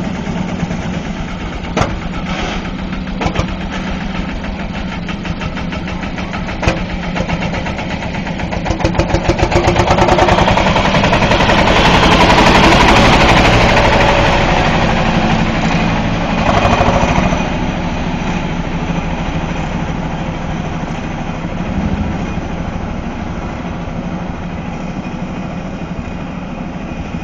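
Vintage tractor engines running with an even, rapid chugging as the tractors drive past; one passes close, growing louder to a peak about twelve seconds in and then fading away.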